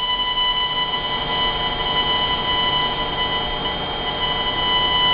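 CO2 surgical laser's emission tone: a steady, high electronic beep sounding while the beam fires in continuous-wave mode at 55 watts.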